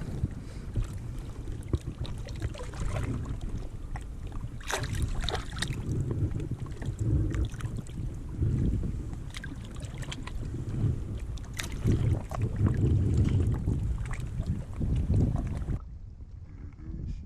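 Wind buffeting the microphone in uneven gusts, with a few scattered clicks and knocks.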